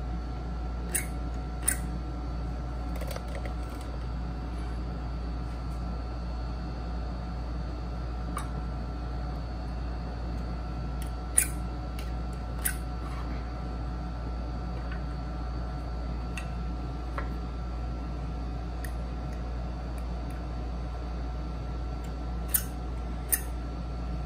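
Steady low hum of background room noise, with about eight sharp, isolated taps and clicks at irregular intervals from hand tools being handled while cutting a wooden dovetail joint.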